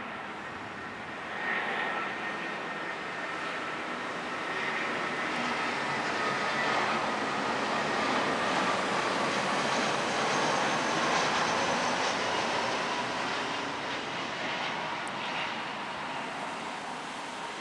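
Jet engines of an Airbus A320 on its landing run. The engine noise swells to a peak midway and eases off, with a whining tone that slowly falls in pitch.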